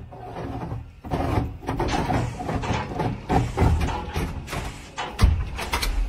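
Reciprocating saw cutting through a wooden door beside the lock, uneven and pulsing, with a sharp thud about five seconds in.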